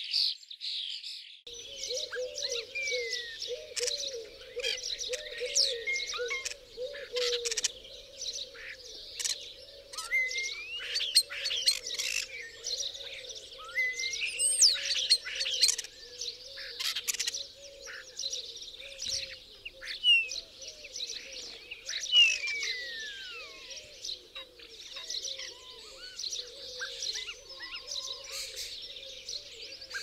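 Common starlings calling: a dense, continuous chatter of clicks, rattles and squeaks from several birds, with drawn-out falling whistles now and then.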